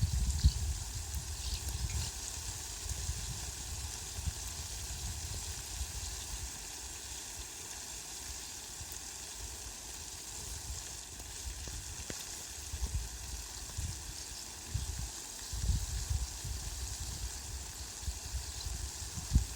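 Heavy rain falling steadily on leafy plants, a continuous even hiss, with low rumbles coming and going, strongest near the start and again about two-thirds of the way through.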